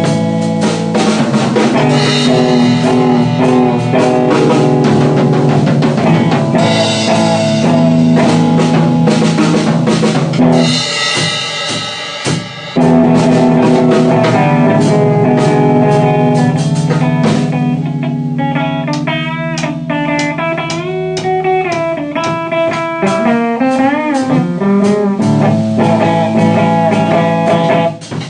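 Instrumental blues jam: a guitar plays sustained, bending lead notes over a drum kit keeping a slow beat. The music thins out briefly about halfway, then picks up again and falls away near the end.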